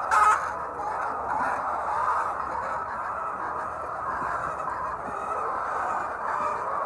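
A flock of many domestic hens clucking and calling over one another in a continuous chatter, with one brief, sharp, louder sound right at the start.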